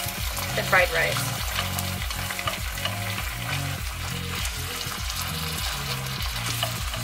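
Diced chicken sizzling and frying in oil in a nonstick pan, stirred and pushed around with a wooden spatula.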